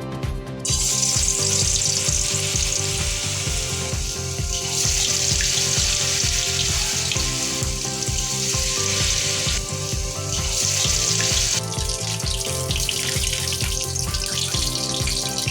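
Bok ful (vegetable hummingbird flower) fritters in batter sizzling as they fry in hot oil. The sizzle starts about a second in and swells and eases a few times, over background music with a steady beat.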